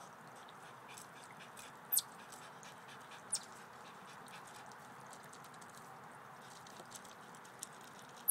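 A small dog's paws scrabbling and crunching over gravel and stone in many faint ticks, with two short, sharp, high chirps falling in pitch about two and three and a half seconds in.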